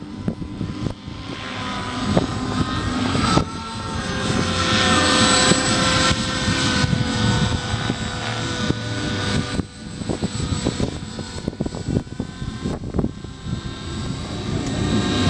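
Radio-controlled Compass 6HV helicopter in flight: a steady rotor and motor whine that drifts up and down in pitch and swells and eases in loudness as it manoeuvres.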